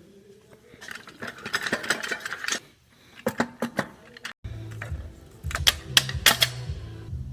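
Metal transmission parts clicking and clinking as they are handled and fitted. After an abrupt cut about four and a half seconds in, background music with a low bass line runs under more sharp metallic clicks.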